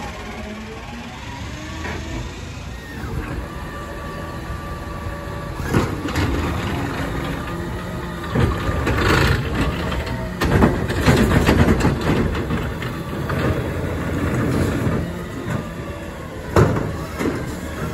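Natural-gas engine of an Autocar garbage truck with a McNeilus ZR automated side-loader, running steadily while the arm works a cart. A cluster of bangs and knocks comes around the middle as the cart is lifted and dumped into the hopper, and there is one more bang near the end as the cart is set back down.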